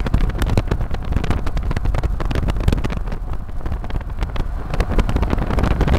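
Road and wind noise in a moving car: a steady low rumble with dense crackling of wind and handling on the phone's microphone.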